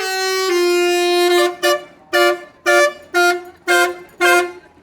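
Indonesian bus 'telolet' multi-tone air horn playing a tune. A long held note steps down in pitch about half a second in, followed by a string of short repeated blasts, about two a second.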